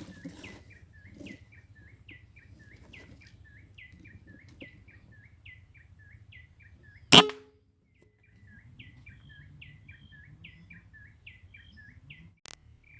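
Bird calls: quick, evenly repeated short chirping notes, about four a second, broken about halfway through by a single loud sharp crack, after which the chirping resumes.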